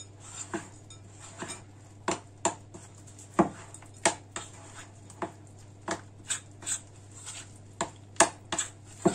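A mixing utensil knocking against a bowl in irregular clacks, one to two a second, as flour is stirred into yeast dough.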